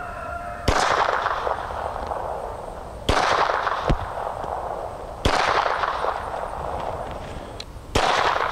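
Four shots from a Phoenix Arms HP25 .25 ACP pistol, two to three seconds apart, each with a long echo trailing off.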